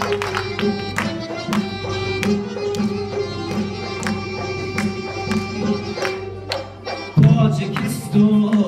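Live folk ensemble playing an instrumental passage: a long-necked lute plucked in quick strokes over a steady accordion, with a pulsing beat. About seven seconds in, a male singer comes in on a microphone and the music gets louder.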